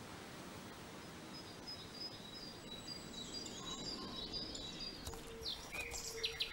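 Forest ambience: a steady hiss with birds chirping and singing, starting about a second and a half in and growing busier near the end. A low steady tone joins about five seconds in.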